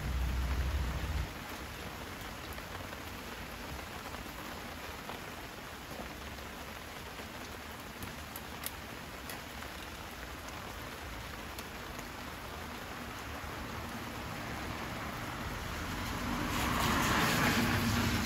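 Steady rain pattering, with a wood fire crackling faintly now and then. A low rumble in the first second, and the rushing wash swells louder near the end.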